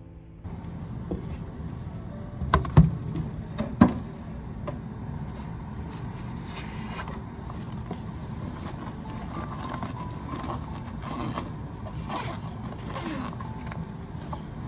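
Steady low rumble of indoor room noise. A few loud knocks come about three to four seconds in, and a black backpack is handled with fainter rustles and clicks.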